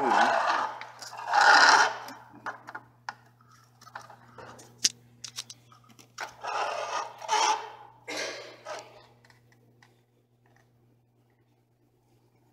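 Hands working the string-and-axle drive of a home-made tape-measure-powered toy car: scraping and rubbing in several bursts with scattered sharp clicks, dying away about ten seconds in.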